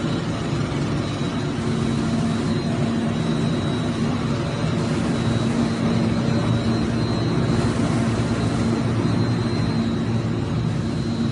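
Plastic-processing line machinery running steadily: a constant low mechanical hum with a faint thin high whine over a wash of machine noise.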